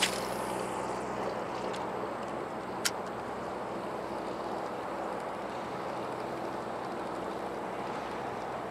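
Small outboard motor running steadily at low speed, a low even hum over wind and water noise. Two sharp clicks cut through it, one at the start and one about three seconds in.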